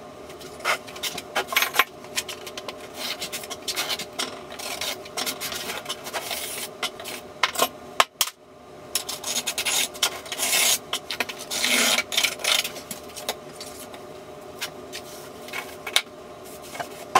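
Irregular scraping and rubbing with many small clicks and knocks, with a brief break about eight seconds in.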